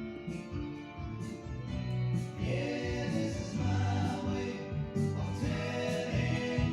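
Music with a choir singing held notes over a steady beat, in a gospel style.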